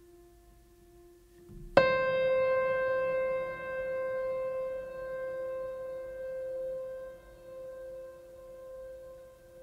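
Background music: faint sustained tones, then a single piano note struck about two seconds in that rings out slowly.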